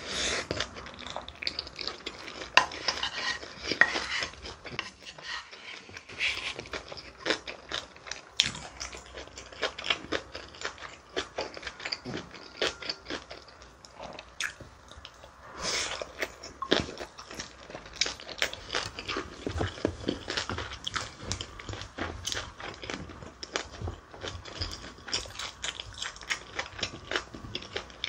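Eating sounds: a wooden spoon scraping and clicking against a large bowl of mixed bibimbap, with chewing of the rice in between, many short clicks and scrapes.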